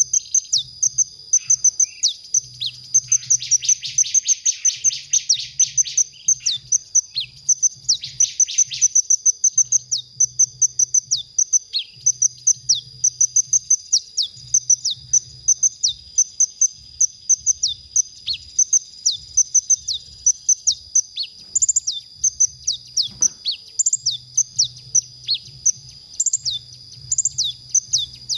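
Male sunbird singing: a long run of rapid, high-pitched chirps and short downward flicks, broken by fast trills about three seconds in and again around eight seconds.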